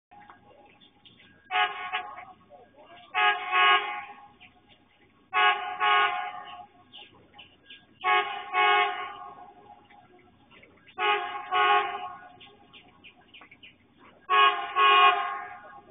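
CNR electric multiple-unit train's horn sounding repeated double blasts, a pair about every two to three seconds, warning as the train comes up to a level crossing.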